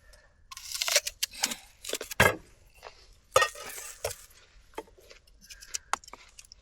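Light clattering, clicking and rustling of small objects being handled, in a few short bursts.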